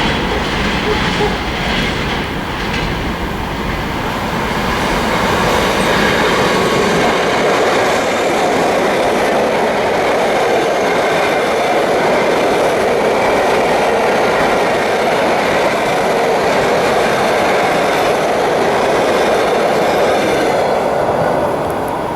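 Freight train wagons rolling past, a steady loud rumble and clatter of steel wheels on the rails that eases near the end.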